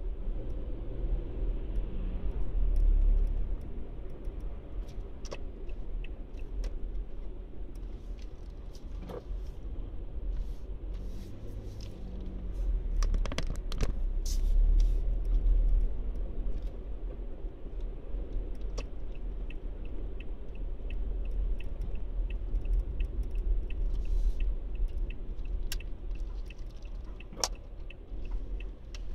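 Car interior while driving slowly: a steady low engine and road rumble with occasional knocks and clicks. In the last third a turn signal ticks regularly.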